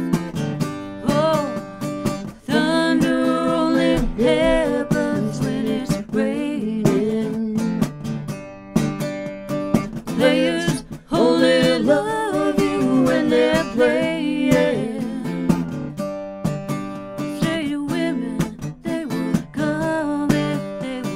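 Live acoustic song: an acoustic guitar strummed in chords with a singing voice over it. The voice sings two long phrases, with the guitar going on alone between them and near the end.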